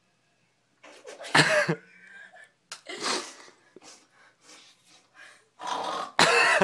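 A person sneezing: a loud sneeze about a second and a half in, another around three seconds, and the loudest near the end, with breathy sounds between.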